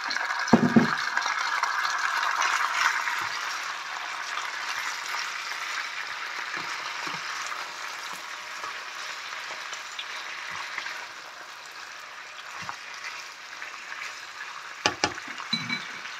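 Beef slices sizzling in a hot nonstick pan with green beans and onion, the meat just added: the sizzle is strongest in the first few seconds and slowly dies down. A couple of dull knocks come about half a second in and near the end.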